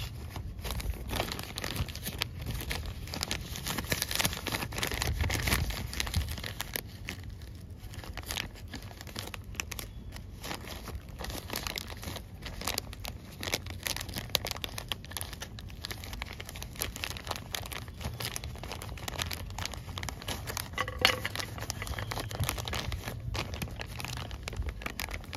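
Plastic milk pouch crinkling and crackling in the hands while small drainage holes are punched through it with a nail.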